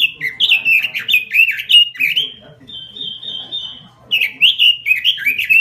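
Pekin robin singing a loud, fast run of sliding whistled notes, broken about halfway by a short rapid trill before the sliding notes resume. This is the full, energetic 'gacor' song used as a lure and tutor recording for cage birds.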